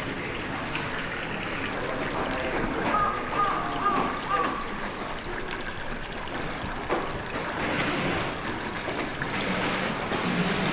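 Steady wash of flowing water from the polar bear enclosure's pool.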